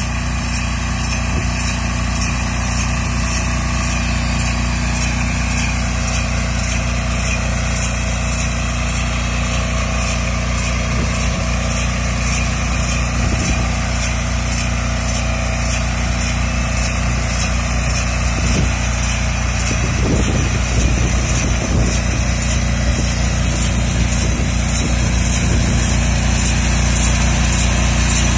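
Small engine of a walk-behind tractor driving a mini round baler, running steadily under load while the baler picks up cut dry grass.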